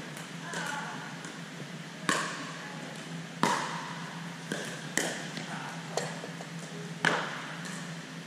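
Pickleball paddles striking a hard plastic pickleball in a rally: four sharp pops roughly one and a half seconds apart, the last the loudest, with quieter taps between, echoing in a gym over a steady low hum.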